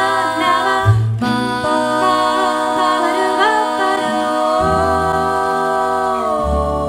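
Vocal group singing wordless harmony in held chords that change a few times, over a low bass note.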